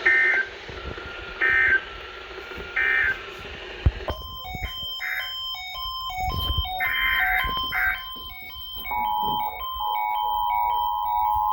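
Emergency Alert System signalling: three short data bursts about 1.4 s apart, the end-of-message code closing a flash flood warning, then a beeping electronic melody of stepping tones. About nine seconds in, a steady two-tone alert signal begins under it.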